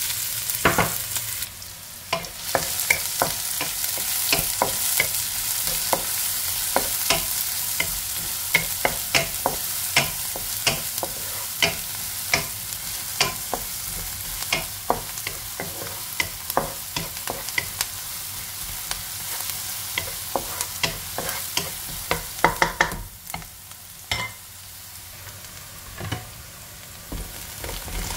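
Chopped red onion sizzling in hot oil in a nonstick wok, stirred with a wooden spatula that scrapes and taps the pan many times. The sizzle drops off sharply a few seconds before the end.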